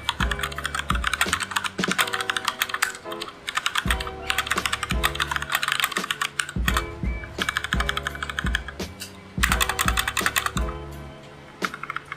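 Fast typing on a Rantopad MXX mechanical keyboard, a dense run of key clacks that eases off briefly near the end, over background music with a steady low beat.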